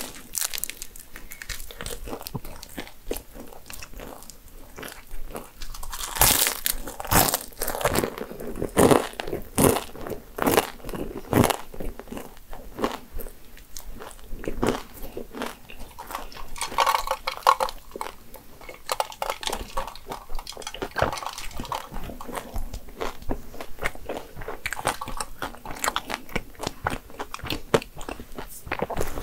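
Close-miked chewing of a flaky laugen (pretzel) croissant: a dense run of crisp crunches and crackles from the pastry layers. The crunching is heaviest in the first half and softer after.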